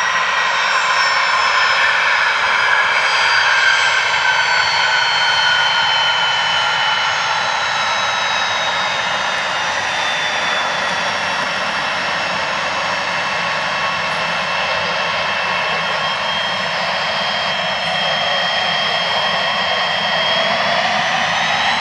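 Pilatus PC-24's twin Williams FJ44-4A turbofan engines running as the jet taxis, a steady jet whine over a rushing roar. The whine slowly falls in pitch over the first half, holds steady, and begins to rise again near the end.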